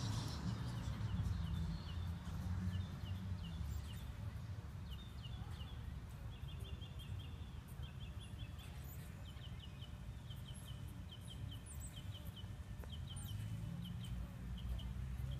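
Outdoor ambience: short high chirps from a small animal repeat in quick runs throughout, over a steady low rumble.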